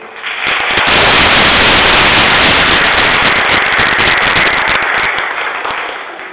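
Audience applauding: it starts just after a short pause, swells quickly, holds, and tapers off near the end.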